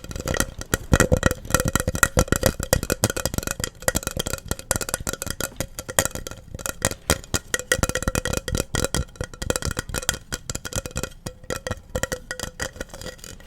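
Fast, uneven tapping on a hard object that rings faintly, as an ASMR tapping trigger.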